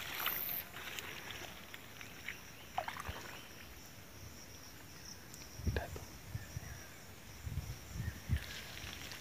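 Faint ambience of a wet field: a steady, high-pitched animal chorus runs throughout, broken by a few short clicks and dull low thumps, once about halfway through and a few times near the end.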